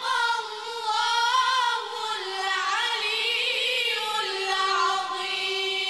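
A group of boys chanting Quranic verses together. Their voices wind and slide between notes, then settle on one long held note from about four seconds in.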